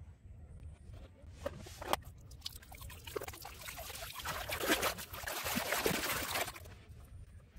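Shallow muddy water splashing and trickling as a hand works a plastic toy gun through it, building up and loudest for about two seconds near the end before dying away. A couple of light knocks come a second or two in.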